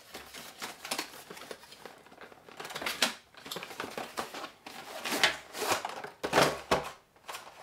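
Cardboard product box being opened and unpacked by hand: flaps scraping and plastic-wrapped contents rustling as they slide out, in short irregular bursts with a few light clicks.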